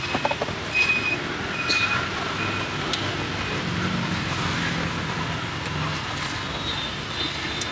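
Street traffic noise, with an engine passing by near the middle and a few short high tones over the steady hum of the road.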